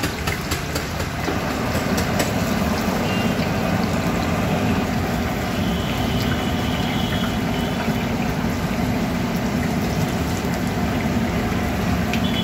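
Hot oil sizzling and bubbling as bread pakoras deep-fry in a large kadhai, over a steady low rumble. There are a few light clicks in the first two seconds.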